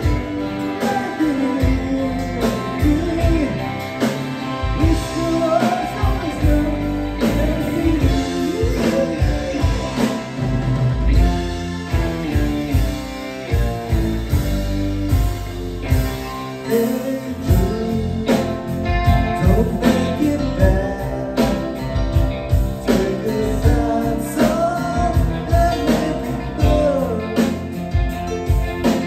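A live band playing a song: singing over a drum kit, electric bass and electric guitar, with a steady beat.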